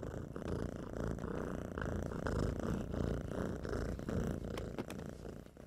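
A cat purring: one unbroken purr that tails off near the end.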